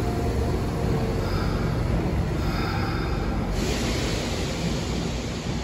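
Kintetsu train running along the track in an enclosed underground station, a steady low rumble with faint wheel tones as its last car passes out of view. About three and a half seconds in a steady hiss starts.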